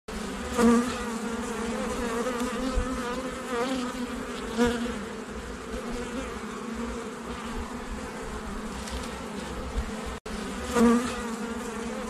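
Honeybees buzzing as a steady hum. Bees fly close past the microphone several times, each a brief, louder buzz that bends in pitch.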